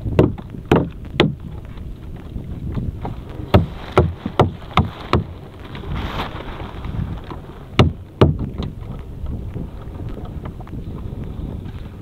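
Fishing net being hauled by hand over the side of a small fishing boat: a series of sharp knocks against the hull, most in the first few seconds and two more past the middle, over steady wind noise on the microphone.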